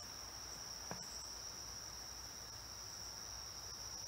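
Crickets trilling in a steady high-pitched chorus, with one faint tap about a second in.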